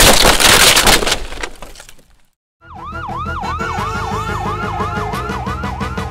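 A loud crash sound effect, about a second of clattering noise that fades out. After a brief silence, music starts with a fast repeating siren-like wail, about three rises a second, over a beat.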